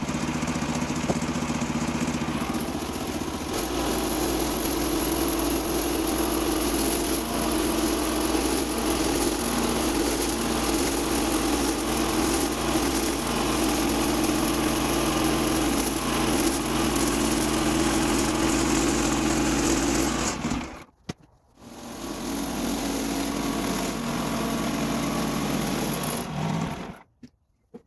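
Woodland Mills HM126 portable band sawmill running steadily through a cut in a pecan log, its small gasoline engine droning under load with the blade's hiss. The sound drops out abruptly for about a second around two-thirds of the way in, resumes, and cuts off again near the end.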